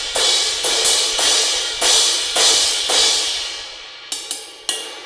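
Sabian 18-inch AAX Dark crash cymbal struck again and again, about ten crashes, some in quick pairs, each ringing out and fading before the next. The cymbal has just been repaired after crack damage around the bell, and it sounds good.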